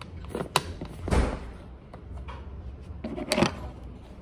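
Plastic lunch container being opened by hand. There are a few small plastic clicks, then a scraping rub of the lid about a second in, and a clatter of plastic near the end as the lid is set down.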